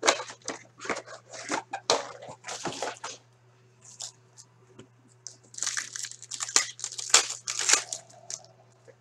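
Foil hockey card packs handled and one torn open: crinkling and tearing of the wrapper, in quick bursts at first, then a quieter gap, then a denser run of crinkling in the second half.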